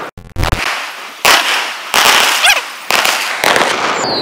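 Aerial fireworks going off: a quick series of about five loud bangs, each trailing off in a hiss, with a short rising whistle about two and a half seconds in.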